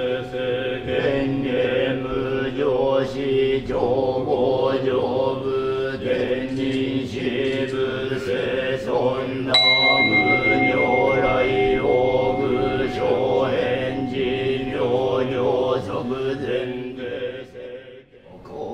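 Buddhist monks chanting a sutra in unison in low, steady voices. About ten seconds in, a temple bell is struck once and rings on with a clear, high tone over the chant. The chant fades away near the end.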